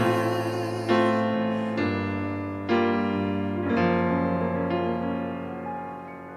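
Piano closing a slow ballad: a sung note with vibrato dies away about half a second in, then soft chords are struck about once a second and left to ring, fading out.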